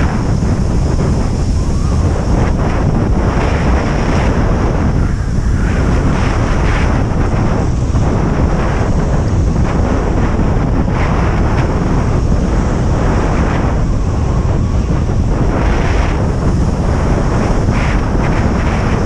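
Strong wind buffeting an action camera's microphone while riding a kite landboard, a loud, steady rumble that flutters in gusts.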